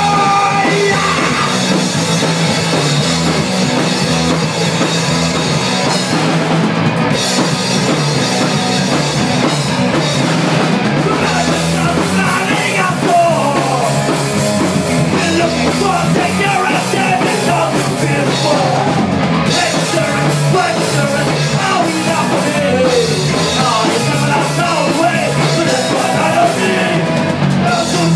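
A punk rock band playing live and loud: drum kit, electric bass and guitar, with a singer's vocal over them from about halfway through.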